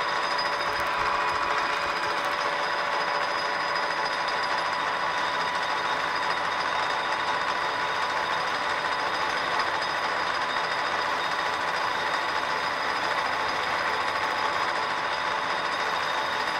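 Metal lathe running steadily at speed, its motor and gearing giving a steady whine over an even mechanical hum.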